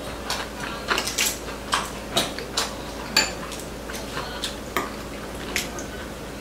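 Chopsticks and spoons clicking against ceramic bowls and plates while eating, in irregular light taps about two a second, with a sharper clink a little over three seconds in.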